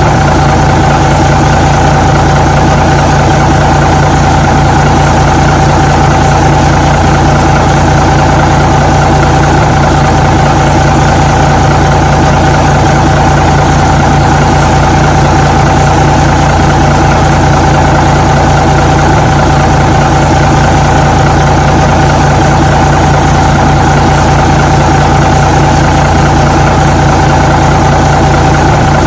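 Truck engine running steadily at an even speed, with no revving or change in pitch.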